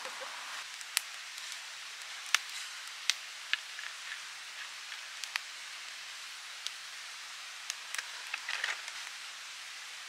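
Firewood burning in a fire bowl, crackling with sharp, irregular pops over a steady hiss.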